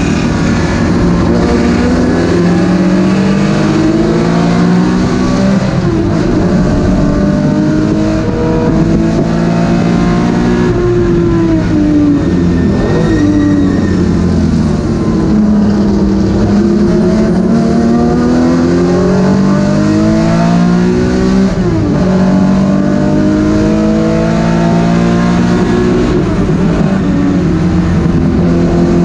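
Vintage race car's engine at full racing load, heard from inside the cockpit: its pitch climbs again and again and drops back at each gear change. A few times the pitch falls more slowly as the car slows, then climbs again.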